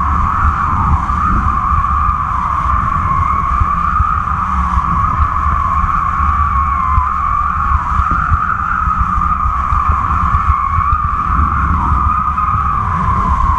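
Wind buffeting an action camera mounted on a kite's flying line at speed: a heavy low rumble under a steady, slightly wavering high whistle.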